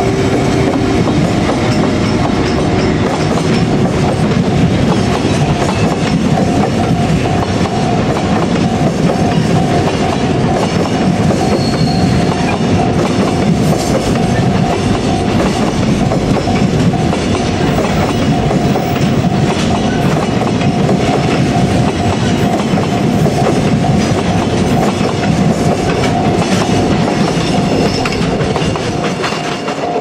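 JR Freight train hauled by an EF81 electric locomotive passing close by, its container flat wagons clicking and rattling steadily over the rail joints. A level-crossing alarm rings as a steady tone all the way through.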